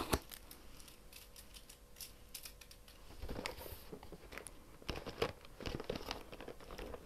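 Advent calendar packaging being torn and crinkled open by hand: irregular rips, rustles and small clicks, busiest about halfway through and again near the end.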